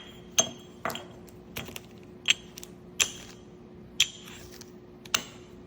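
A small magnet clicking and tapping against a hair dryer holder as it is tested for whether it sticks: about seven sharp, short metallic clicks with a brief ring, irregularly spaced. The magnet barely holds, a sign that the holder is hardly magnetic.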